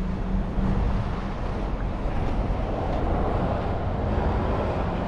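Wind buffeting the microphone over a steady wash of surf, with a faint low hum in the first second or so.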